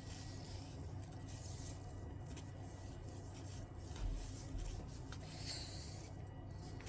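Ribbon rubbing and rustling in the hands as it is twisted around an ornament, in short strokes, with a soft low bump about four seconds in.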